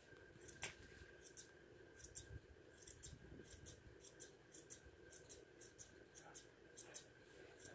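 Grooming shears snipping through a standard poodle's curly coat: a run of faint, quick snips, irregular and about two a second.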